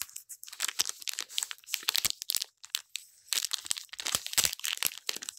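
Clear plastic packaging sleeve crinkling and crackling as fingers handle it and work at opening it: two stretches of quick crackles with a short lull a little past halfway.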